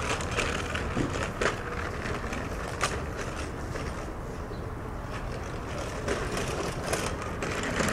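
Steady outdoor background noise with a low rumble and a few faint clicks or knocks.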